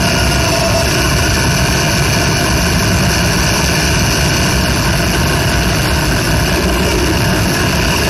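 A loud, steady drone of dense rumbling noise that does not change, from an experimental noise or drone music piece.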